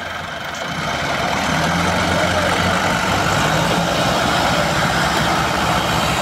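Two diesel Massey Ferguson tractor engines running hard and steady under heavy load, one hauling a sugarcane-laden trailer while the other pushes it from behind.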